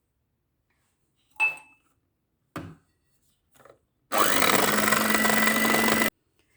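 Electric mixer beating cake batter, switched on for about two seconds with a steady motor hum, then cut off abruptly; a click and a couple of light knocks come before it.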